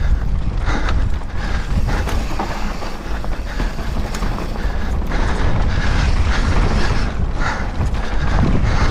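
Downhill mountain bike ridden fast down a dry dirt trail: a steady rumble of tyres and wind on the microphone, with the bike's frame, chain and parts rattling and clicking over the bumps.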